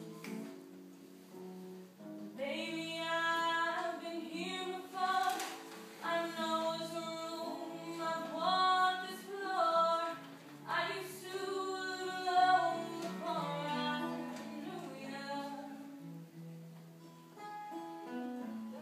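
A woman singing live to an acoustic guitar played beside her. The voice comes in about two seconds in and stops a few seconds before the end, leaving the guitar playing alone.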